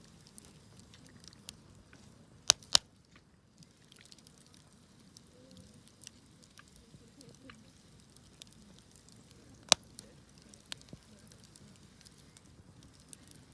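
Wood campfire crackling, with scattered small clicks and sharp pops: two loud pops close together about two and a half seconds in, and another about ten seconds in.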